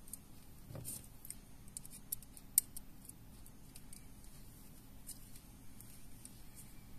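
Small sharp clicks and ticks of round-nose pliers being handled and worked on a small foam lure part, clustered in the first few seconds with the loudest click about two and a half seconds in. A soft bump comes just before the first second.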